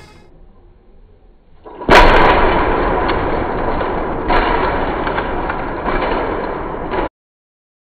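A loud boom about two seconds in, followed by about five seconds of loud rumbling noise with a couple of swells, cutting off suddenly.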